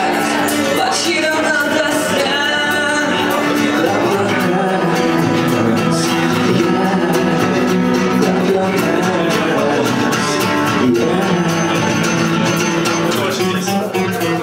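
A band playing a song, with guitar and a singing voice over a steady rhythm.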